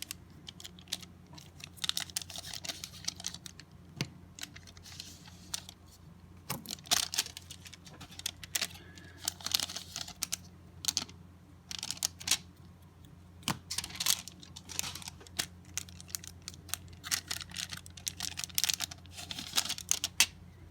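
Trading cards being handled and flipped through: a run of irregular, quick soft clicks and flicks, with a steady low hum underneath.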